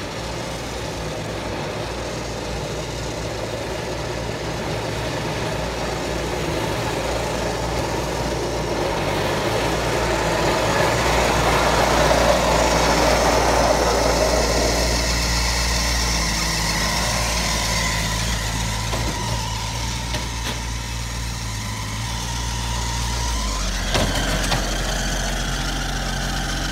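Ford 1120 compact tractor's three-cylinder diesel engine running steadily as the tractor drives up close, loudest about halfway through. A short knock sounds near the end.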